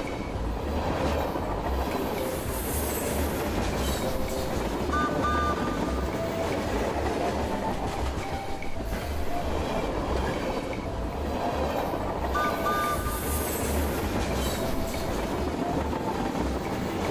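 Train running along the track, its wheels clattering in a steady rhythm, with two short high tones, about five seconds in and again about twelve seconds in.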